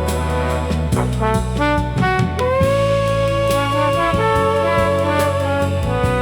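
Background music: a remixed classical piece with a sustained lead melody over a bass line and percussive hits.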